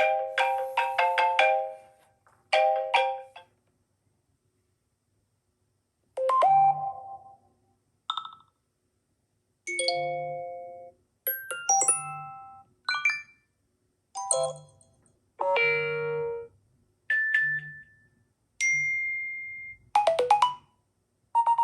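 iPhone 14 Pro built-in alert tones played one after another: about a dozen short chimes and note phrases, each lasting about a second, separated by brief silences.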